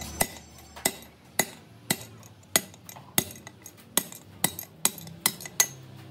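Hammer tapping on metal: about a dozen sharp, ringing metallic taps at roughly two a second, in the course of a manual gearbox rebuild.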